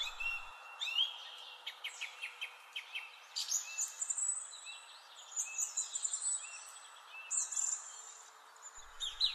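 Song thrush singing: short, varied phrases, each motif repeated two to four times, from rising notes and clicky trills to thin high whistles.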